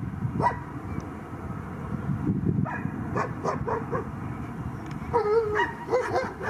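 A dog barking and yelping in short bursts, a few at a time and most busily near the end, over a steady low rumble.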